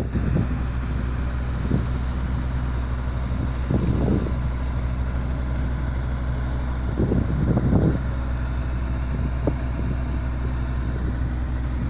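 River ferry's engine running at a steady low drone, with a few brief swells of louder noise about four and seven to eight seconds in.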